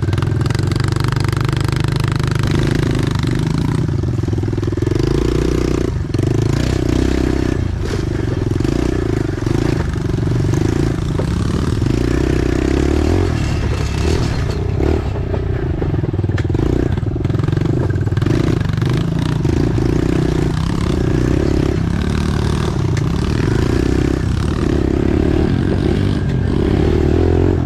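Pit bike engine running at low speed on a rough dirt trail, its note rising and falling again and again as the throttle is opened and shut, with brief knocks from the bumpy ground.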